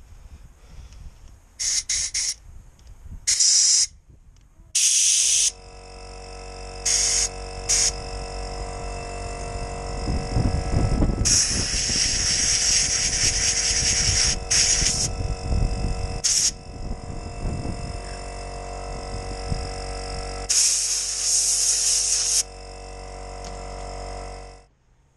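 Compressed-air blow gun fired in short hissing blasts and two longer ones, blowing out a lawnmower carburettor and its jets. An air compressor starts up a few seconds in, runs with a steady hum under the blasts, and cuts out near the end.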